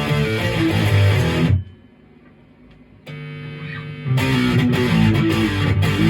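Maverick Chaos 2 HT electric guitar through a Brown Creature distortion pedal, playing a distorted riff that stops short about one and a half seconds in. After a brief pause a quieter held note rings, and the riff starts again about four seconds in.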